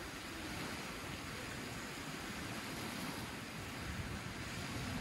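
Small waves washing onto a sandy beach: a steady, even hiss of surf with a low, uneven rumble of wind underneath.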